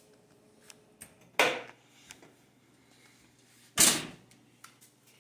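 Metal sheet pan being set down and shifted on a granite countertop: two sharp clanks about two and a half seconds apart, with a few light clicks between.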